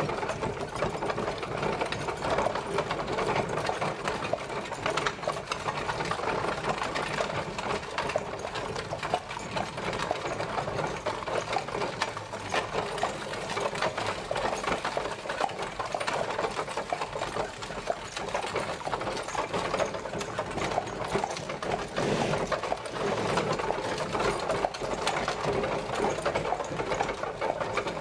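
Horse-drawn carriage travelling: a steady, dense rattle of wheels and wooden body.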